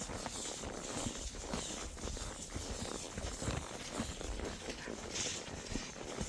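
Horse walking, its hooves falling in soft, irregular thuds.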